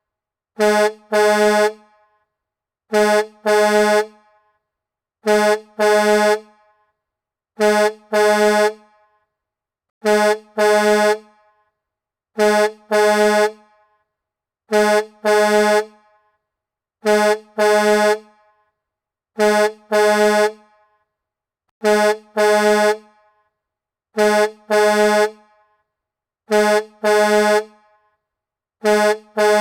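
Semi-truck horn sounded in double honks: two short blasts on one low note about half a second apart, the pair repeating about every two and a half seconds in a steady loop, some thirteen times.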